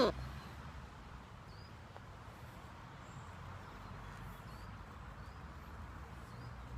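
Outdoor ambience: a steady low rumble with a few faint, short high chirps from small birds scattered through it.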